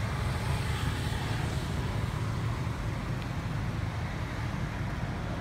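Steady low rumble of outdoor background noise with a faint hiss above it, with no distinct event standing out.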